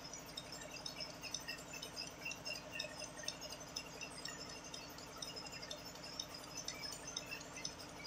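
Milking machine running on the cows: a steady mechanical hum with a fast, even pulse, over scattered faint, high clinks.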